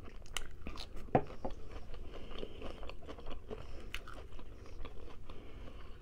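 Close-up chewing of rotisserie chicken and lettuce, with scattered crunches and wet mouth clicks.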